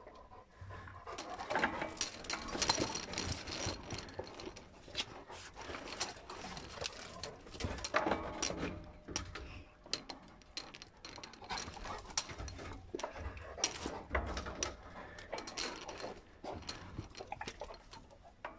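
Two dogs play-fighting: a Cane Corso mouthing a German Shepherd, with low growls and grumbles, snuffling and mouth noises. Irregular clicks and jingles from the metal chain and collar hardware run through it.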